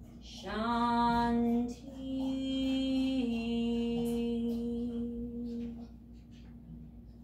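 A woman chanting a peace mantra solo, slow and sustained: three long held notes, the middle one slightly higher and the last slightly lower, ending about six seconds in.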